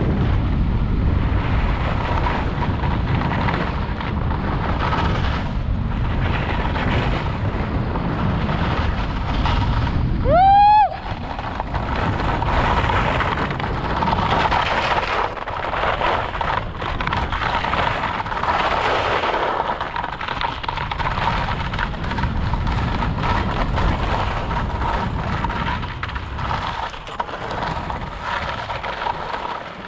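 Wind buffeting an action camera's microphone while skis slide and scrape across firm, wind-textured snow. About a third of the way in, a brief rising pitched sound stands out as the loudest moment.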